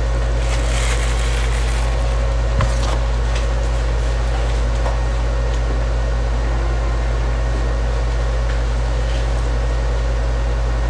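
Steady low hum of a kitchen appliance's fan running, with one light click about two and a half seconds in.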